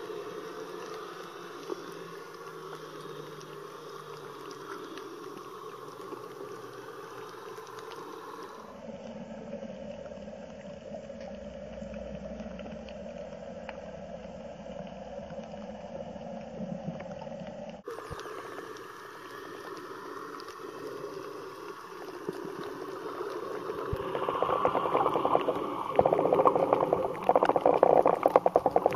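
Underwater ambient noise picked up by a camera in its waterproof housing: a steady wash of water sound that shifts abruptly twice, then grows louder near the end with rapid crackling.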